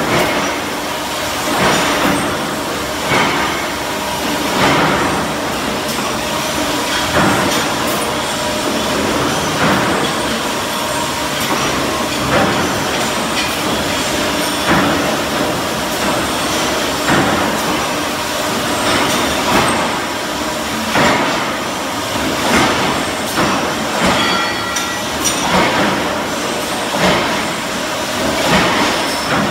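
Brake-pad backing-plate production line machinery running with a steady mechanical din, and a sharp metallic knock every second or two.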